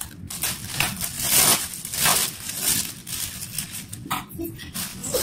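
Clear plastic flower wrapping crinkling and rustling in bursts as flower stems are handled and pulled out of it.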